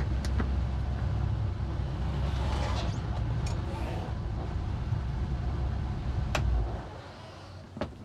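Boat engine running with a low, steady rumble that drops away about seven seconds in, with a few sharp clicks over it.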